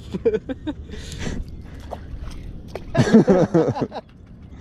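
Men's voices on a small boat: short unworded exclamations, the loudest about three seconds in, over a low steady rumble.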